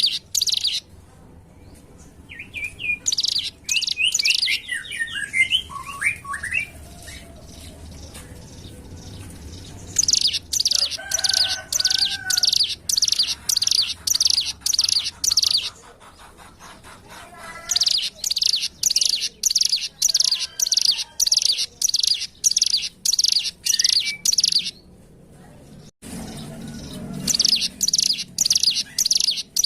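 Ciblek gunung singing in bouts of rapid, sharp, high repeated notes, several a second, each bout lasting a few seconds, with short pauses between. In one bout, a few seconds in, the notes slide downward in pitch. It is a lure song used to get captive ciblek to sing.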